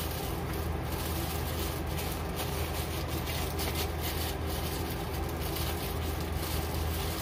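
A steady low machine hum with an even hiss, and a few faint rustles as a plastic-wrapped item is handled.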